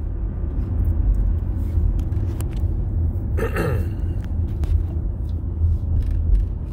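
Car interior road noise while driving: a steady low rumble of engine and tyres. About halfway through, a brief louder hiss with a falling tone passes.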